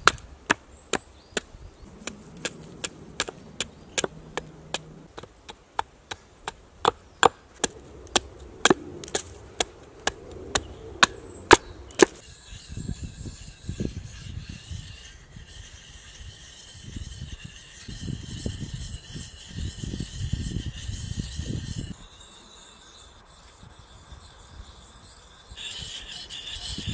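Hatchet blows chopping into a piece of birch on a wooden chopping block, about two sharp strikes a second for some twelve seconds. Then the axe's edge is sharpened by hand with a whetstone: the stone scrapes and rubs along the steel in uneven strokes.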